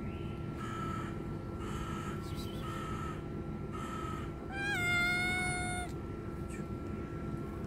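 Hungry stray tabby cat meowing: four short meows about a second apart, then one louder, drawn-out meow that rises and then falls, about four and a half seconds in.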